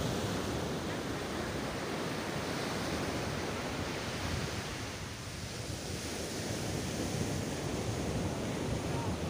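Ocean surf breaking and washing up a beach, a steady rush of waves that eases briefly about five seconds in, with wind on the microphone.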